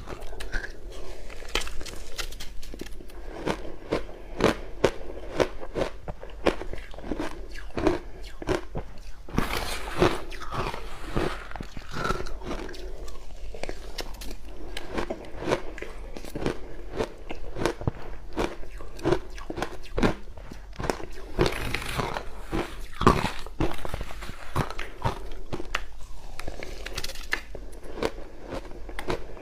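Close-miked crunching of crushed ice being bitten and chewed, an irregular run of sharp crunches with a few louder bites.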